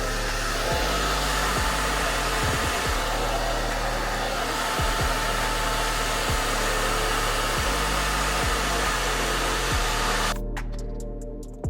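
A hair dryer blowing steadily, then switching off abruptly near the end, over background music with a steady beat.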